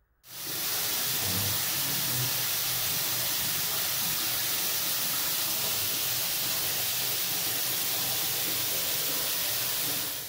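Running water spraying steadily with an even, loud hiss, starting suddenly and cutting off sharply near the end.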